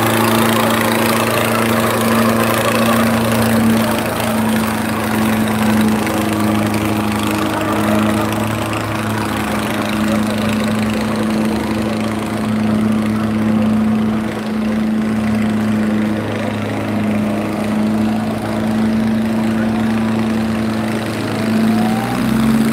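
Diesel engines of two tractors, one a Farmtrac 6055, held at full throttle and labouring under heavy load as they pull against each other in a tug-of-war. The result is a steady, even drone that shifts in pitch near the end.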